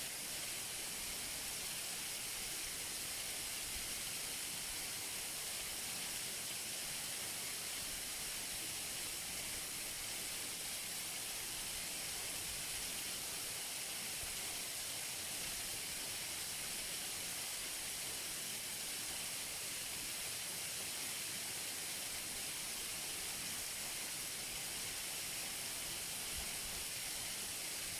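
Waterfall falling steadily: a constant, even rush of water with a hissing high end and no change throughout.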